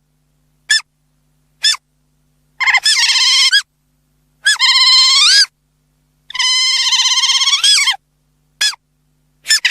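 Otter calling: two short, high chirps, then three long, high-pitched squeals that waver in pitch, each about a second or more, the third the longest. Another short chirp follows, and a new squeal begins right at the end.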